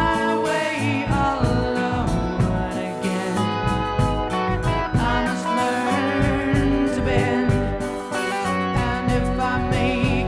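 1970s rock ballad recording played by a full band: electric guitar, keyboards, bass and drums, with notes held and bent with vibrato.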